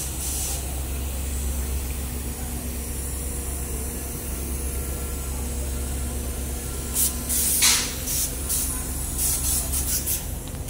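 Paint-spraying rig at work on a ship's steel hull: a steady machine hum under a constant hiss, with several short, sharp hissing spray bursts in the last few seconds.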